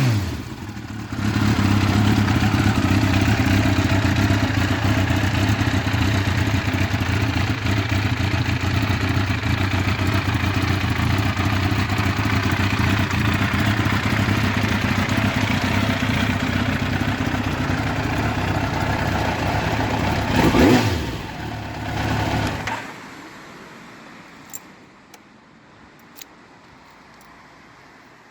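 1997 Yamaha YZF1000R Thunderace's inline-four engine idling steadily through a Black Widow stainless exhaust. It is revved once sharply and falls back near the end, then is switched off, and a couple of faint clicks follow.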